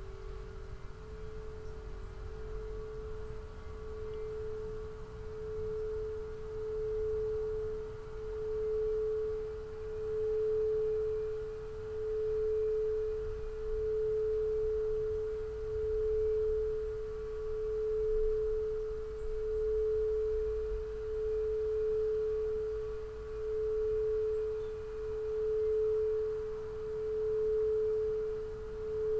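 Crystal singing bowl sounding a sustained, nearly pure tone that swells and fades about every two seconds. A second, slightly lower bowl tone dies away in the first few seconds.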